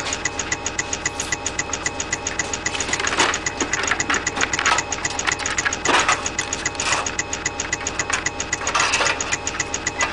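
A machine running with a steady, fast, even knocking pulse, several beats a second, over a continuous mechanical hum.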